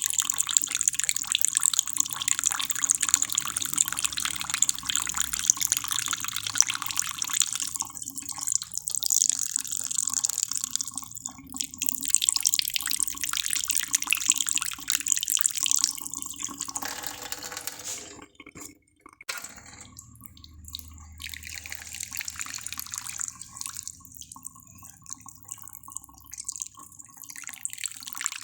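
Running water with dripping: an irregular, splashy hiss that drops away briefly about eighteen seconds in, then carries on.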